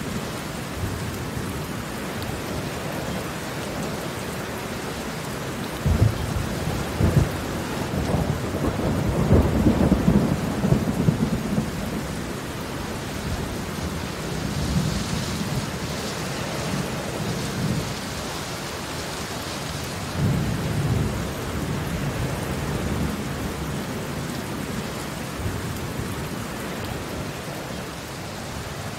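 Steady rain falling on concrete pavement, a continuous hiss of drops hitting the wet surface. Low rumbles come in about six seconds in, loudest around ten seconds, and again briefly around twenty seconds.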